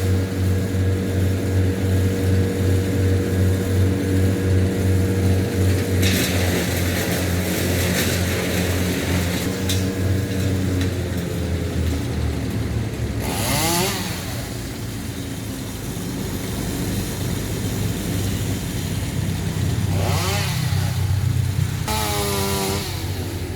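Small petrol engine of a garden power tool running steadily with a pulsing beat, revving up about halfway through and again near the end.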